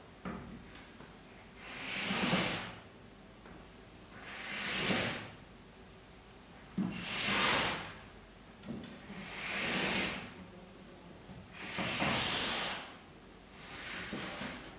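Woven cloth set with metal plates being pushed and folded into pleats by hand: a rustling, scraping swish that swells and fades about every two and a half seconds, six times, with a faint click or two between.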